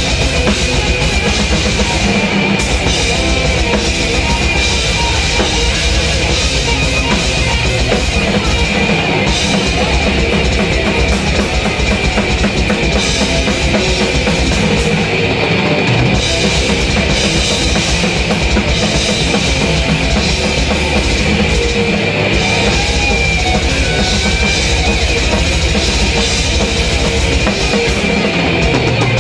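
Heavy metal drumming on a full drum kit, played hard and fast with a dense, rapid bass drum, over loud distorted metal music.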